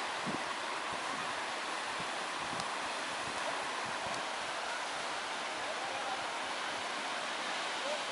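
Steady wash of small surf breaking and running up a sandy beach.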